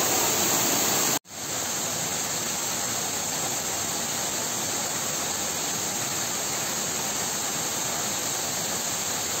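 Waterfall pouring and splashing close by, a steady dense rush of water, broken by a brief gap about a second in.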